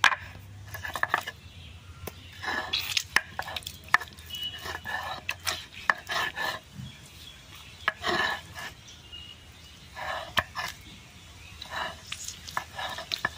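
Tomatoes being ground on a shil-nora, a flat stone grinding slab with a stone roller. The roller makes repeated rough rubbing and crushing strokes, every second or two, with sharp knocks of stone on stone between them.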